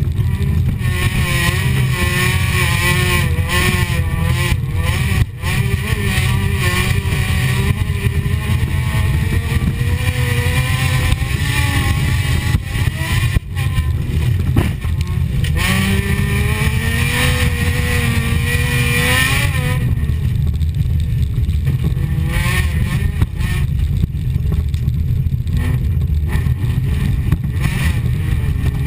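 Folkrace car's engine heard from inside the cabin, running hard at racing pace, its pitch rising and falling with throttle and gear changes and dropping briefly a few times.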